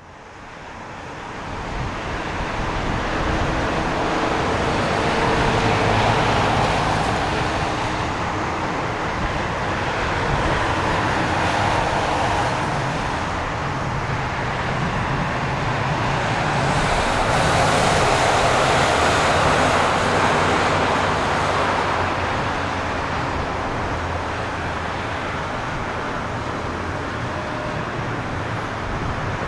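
Jet engine noise from a landing Boeing 777-300ER's GE90 engines: a continuous rushing sound that fades in at the start and swells twice, about six and again about eighteen seconds in.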